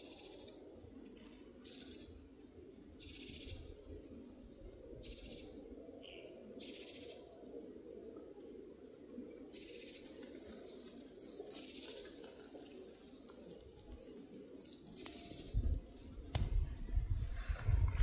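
Outdoor ambience: short, high-pitched chirping calls repeat every second or two over a steady low hum. In the last few seconds, low rumbling bumps on the microphone are the loudest sound.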